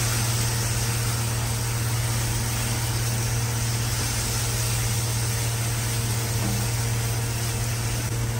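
A kitchen motor running with a steady low hum and a constant hiss, over onion-and-spice masala frying and being stirred in a nonstick kadai.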